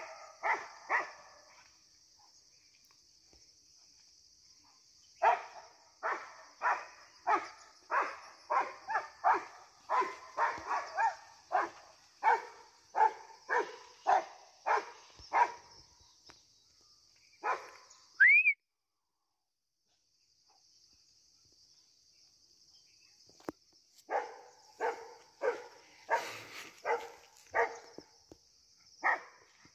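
Rottweiler barking repeatedly while chasing off langurs, about one and a half barks a second, in two long runs with a short burst at the start. A steady high hiss runs beneath; just past the middle comes a short rising whistle, the loudest moment, after which everything drops out for about two seconds.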